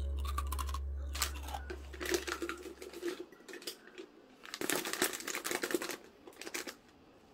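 Drip-bag coffee sachets crinkling as they are slid into a glass storage jar, in two spells of rustling: about a second in and again from about four and a half to nearly seven seconds in. A low note fades out over the first three seconds.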